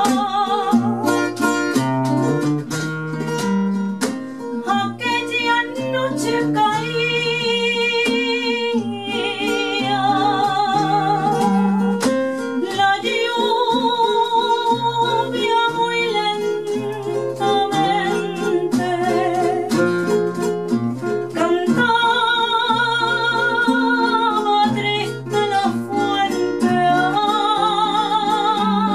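A woman sings a flamenco guajira, drawing out long held notes with a fast wobble and ornamented turns. A flamenco guitar accompanies her, plucked and strummed.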